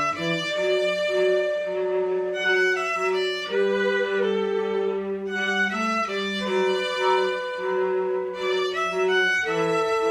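Violin and cello playing together: the cello holds long low notes while the violin plays a higher melody that moves from note to note every second or so.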